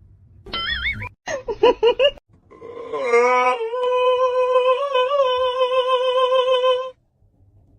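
A pitched voice: a short wavering note, a few quick rising and falling calls, then one long, steady held note lasting about four seconds.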